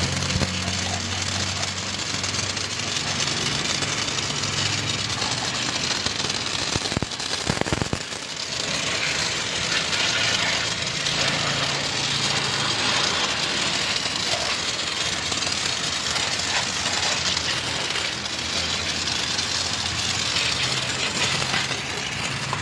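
A pressure washer's water jet hisses steadily as it sprays a motorcycle, over the hum of the washer's motor and pump. The hum drops out after about five seconds and comes back now and then. A brief patch of sharp clattering clicks comes about a third of the way in.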